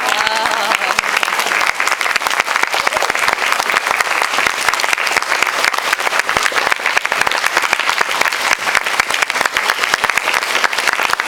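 Audience applauding, a dense, steady clapping of many hands that carries on without a break.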